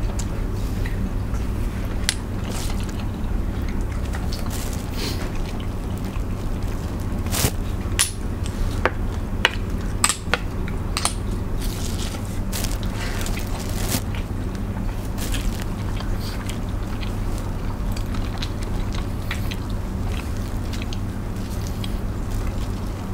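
Seafood eaten by hand: crab shells cracked and picked apart, with chewing and scattered sharp cracks and clicks, most of them in the middle stretch. A steady low hum runs underneath.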